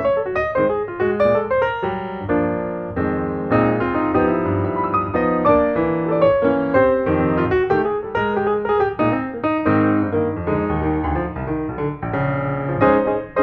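Background piano music with a steady flow of quick notes.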